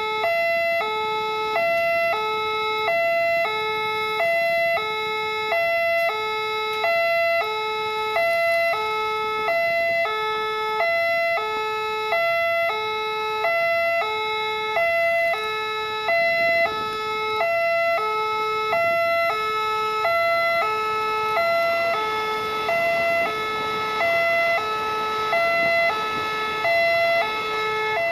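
Railway level-crossing warning alarm: an electronic signal alternating steadily between a lower and a higher note, about one low-high cycle every second and a half, warning that a train is approaching and the barrier is down.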